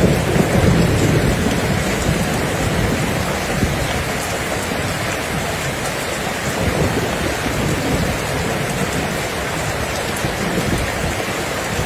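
Steady heavy rain falling on surfaces, with low rolling thunder rumbling underneath, loudest in the first second or so.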